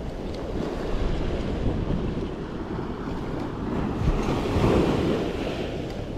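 Surf breaking on the shore, with wind buffeting the microphone: a steady rushing noise that swells about four to five seconds in.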